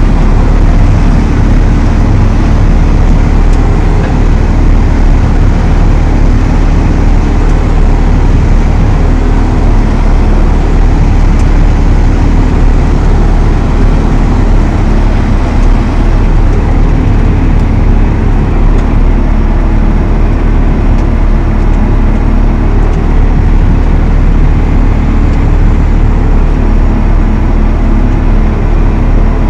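Valtra T214 tractor's six-cylinder diesel engine running steadily at constant speed, a loud even drone with a strong low hum.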